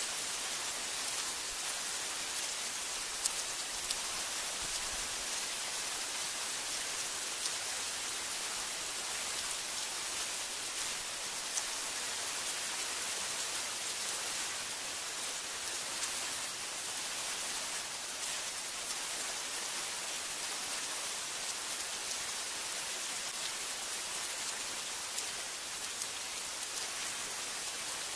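Steady heavy rain falling on trees and foliage: an even hiss with a few single drop ticks standing out.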